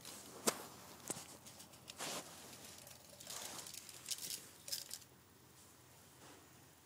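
Ferrets scrambling and scuffling at play, making irregular rustles and scrapes with a sharp knock about half a second in.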